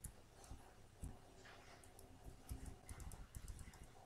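Faint, scattered clicks of a computer keyboard and mouse over near-silent room tone.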